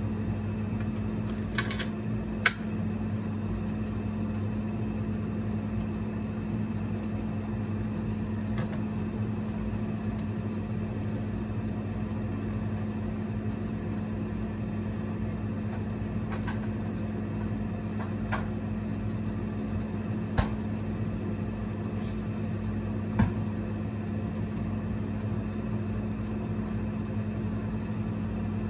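Single-burner induction cooktop running with a steady electrical hum, with a few light clicks now and then.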